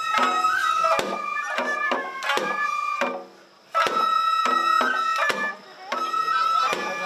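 Japanese shrine festival ensemble music: a high flute line held over drum strikes and plucked shamisen, played in short phrases that break off briefly about three seconds in and again near five and a half seconds.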